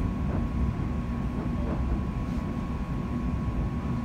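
Interior noise of a London Overground Class 710 electric multiple unit running along the line, heard from inside the passenger saloon: a steady low rumble with a thin, steady whine over it.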